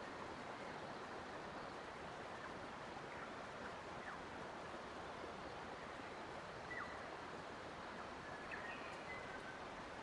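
Forest ambience: a steady soft rushing hiss with a few faint, short, high bird chirps, about a third of the way in, near the middle and toward the end.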